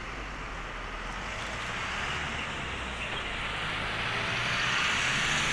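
Rolls-Royce Trent XWB jet engines of an Airbus A350-900 airliner running as it rolls along the runway: a steady rushing whine that grows gradually louder.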